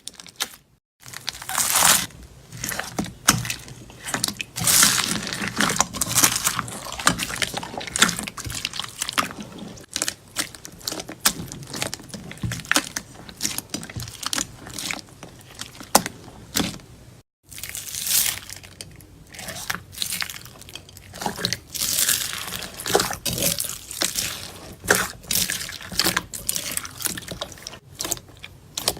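Slime being squished, poked and stretched by hand, giving dense wet crackling and popping clicks. Two brief drop-outs to silence, just under a second in and about two-thirds of the way through, mark cuts between clips.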